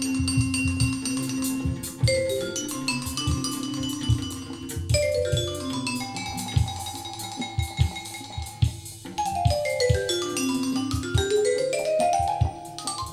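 Music played over restored Teufel M200 loudspeakers driven by a Harman Kardon HK 970 amplifier, picked up in the room by a recorder's built-in microphones. Quick runs of pitched notes step down in pitch and then climb back up, over a regular low thumping beat.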